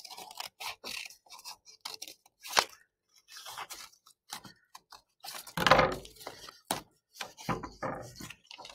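Scissors snipping through folded black construction paper in a series of short, irregular cuts, with paper rustling as it is handled. A louder burst of handling noise comes a little past halfway.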